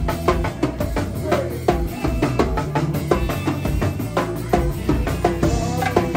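Go-go band playing: a percussionist strikes a set of chrome-shelled tom drums with sticks in quick, dense strokes, their short pitched tones ringing over a drum kit and a low bass line.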